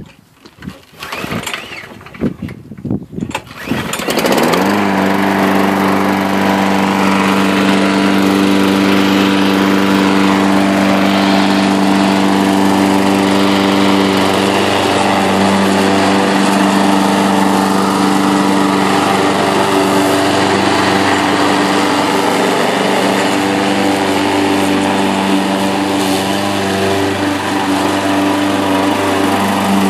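Craftsman 6.5 hp single-cylinder gas lawnmower engine being started: a few seconds of uneven, broken noise, then the engine catches about four seconds in and runs steadily at constant speed.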